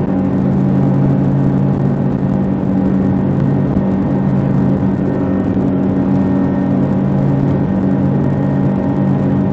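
RIB's outboard engine running at a steady high speed, with wind buffeting the phone's microphone.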